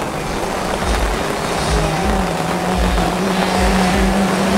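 Simson 60cc two-stroke moped engine running at a steady high pitch that wavers and rises slightly partway through, over a continuous hiss of rain.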